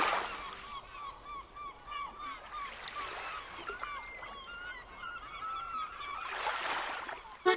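A flock of birds calling, many short overlapping calls, with a soft whoosh at the start and another about six and a half seconds in.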